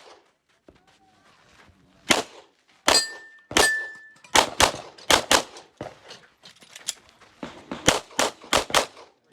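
Rapid 9mm pistol fire from a Glock 34 during a timed IDPA stage. After a near-silent pause of about two seconds come single shots and then quick pairs and strings of shots, some fifteen in all. Two shots just past the three-second mark are each followed by a short ringing note.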